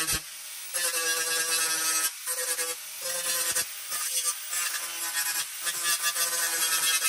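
Electric angle grinder with an abrasive disc grinding paint off a car's steel door panel down to bare metal, its motor whining steadily. The grinding noise drops away briefly several times as the disc lifts off the panel between passes.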